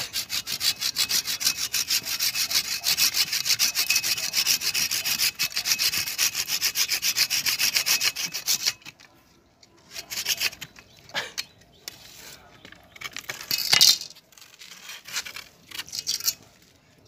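Hand saw cutting through the thick woody roots of a dug-up Melastoma stump, in rapid, even back-and-forth strokes that go on for about eight seconds and then stop. After that there is scattered handling of the roots, with one sharp loud sound a little before the end.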